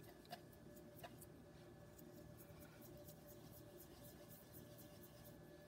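Faint scratchy rubbing of a paintbrush scrubbing and swirling on a tempera paint cake, with two light ticks in the first second.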